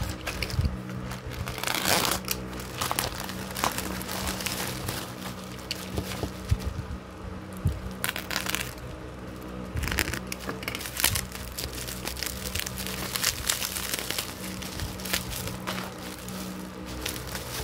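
Plastic packaging, a courier mailer bag and bubble wrap, crinkling and rustling as it is unwrapped by hand, in many irregular short crackles, over a steady low hum.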